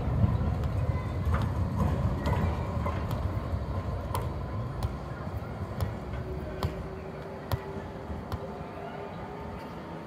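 Bombardier Flexity Classic low-floor tram running away along the rails, its low rumble fading steadily as it recedes. Scattered sharp clicks sound over it.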